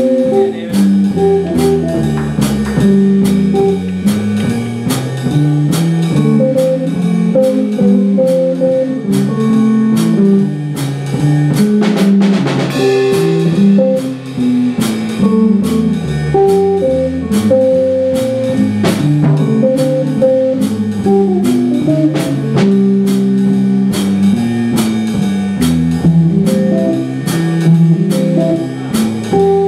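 Small jazz combo playing instrumentally, led by an electric hollow-body guitar soloing over bass and a drum kit keeping time with steady cymbal strokes.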